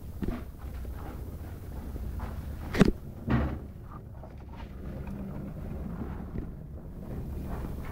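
Two knocks about half a second apart, the first sharp and the loudest, with a few fainter taps, over a steady low hum: handling noise from the clock being picked up and set down or its buttons pressed.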